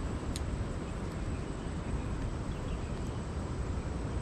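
Steady rush of a stream running high after rain, with one sharp click about a third of a second in.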